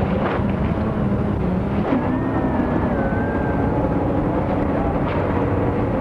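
Factory machinery running, a loud steady mechanical noise with faint wavering hums through it, as a solid rubber tyre is wound on a winding machine.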